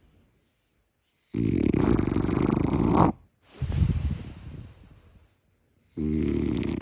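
French bulldog snoring: a long rattling snore, then a second one that fades away, then a third beginning about six seconds in, with short silent gaps between the breaths. The noisy snoring is typical of the breed's short, flat-faced airway.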